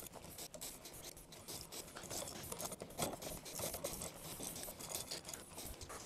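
Faint scratching and rubbing of a receptacle being wired up, its wires worked onto the terminals, with small scattered clicks.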